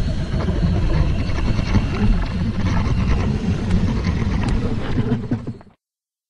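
Designed dragon sound effect: a long, low, rough growl that stops abruptly near the end.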